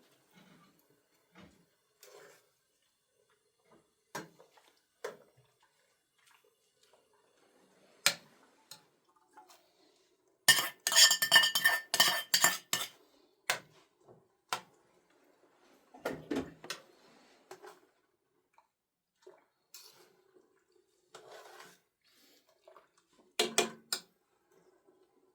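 Metal dishes and utensils clattering. Scattered clinks and knocks are broken by a dense burst of ringing clatter lasting about two seconds, near the middle.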